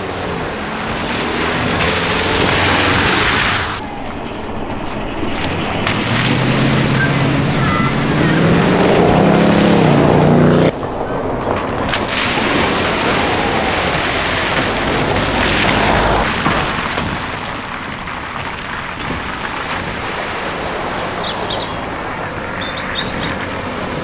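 Vehicles driving one after another through a flooded road ford: water splashing and spraying off the tyres over engine noise. Midway an engine note rises as a vehicle accelerates, then cuts off suddenly, and the sound changes abruptly a few times.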